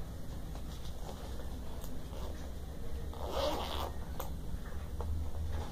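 Zipper of a small makeup bag pulled open: a short rasp about three seconds in, amid light handling clicks over a steady low hum.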